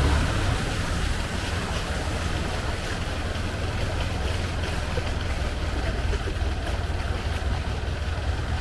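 A boat engine running steadily as the wooden canal boat moves along, a low rumble with a haze of water and wind noise over it; it eases off slightly just after the start, then holds steady.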